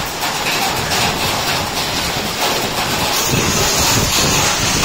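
Hailstones and heavy rain pelting a paved concrete and tile driveway: a dense, steady clatter-hiss of countless small impacts, growing brighter and a little louder about three seconds in.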